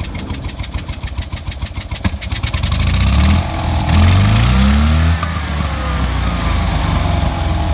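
Fiat 595's two-cylinder engine idling with an even, rapid beat, then revved up twice from about two and a half seconds in, and settling into a steady, faster run.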